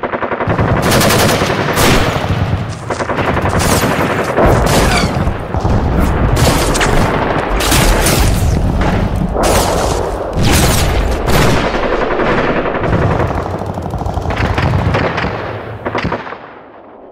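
Heavy automatic gunfire at close range, long bursts following one another almost without pause, from an armoured vehicle's mounted gun. It dies away about a second before the end.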